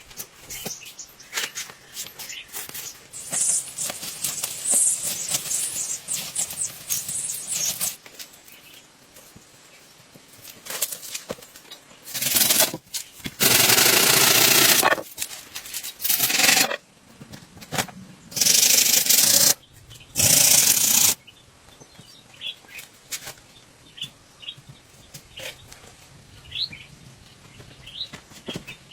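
Rustling and clicking at first, then three loud rasping noises in the middle, each a second or two long, like scraping or sawing. Short bird chirps sound in the quieter last part.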